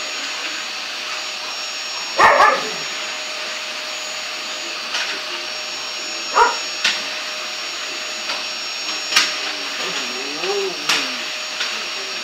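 A vacuum cleaner runs steadily with a constant motor whine. An English bulldog barks about two seconds in and again around six seconds, then gives a wavering, drawn-out whine near the end. A few sharp knocks are heard in between.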